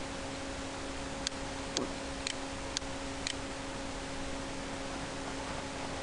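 Five mouse clicks about half a second apart, over the steady hiss and low hum of the recording microphone.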